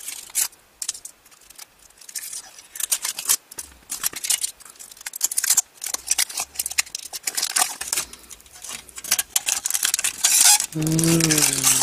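Thin aluminium foil wrapper of a Kinder Surprise Maxi chocolate egg being slit, peeled and pulled off by hand. It crinkles and crackles in irregular bursts.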